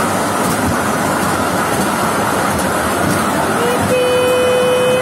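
Steady running noise of a mini tourist train on narrow rails, with a horn sounding one held, single-pitched note that starts with a short slide up about three and a half seconds in.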